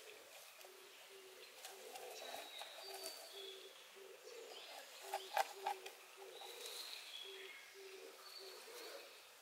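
Faint bird calls: a low, coo-like note repeated about twice a second, with higher chirps from small birds over it. A few sharp clicks come about halfway through.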